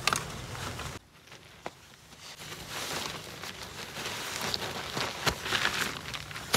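Rustling of a nylon tent bag and crunching of dry pine needles as the tent is unpacked on the ground, with a few small knocks.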